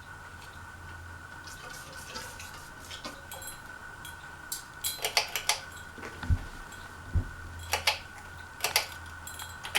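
Light metallic clicking and clinking in irregular clusters, typical of a ceiling fan's bead pull chains and switch being handled, with two dull thumps about six and seven seconds in. A steady low hum and a faint high whine run underneath.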